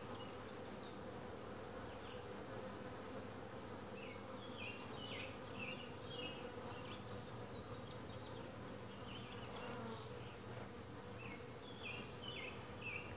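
Honey bees humming steadily over an open hive.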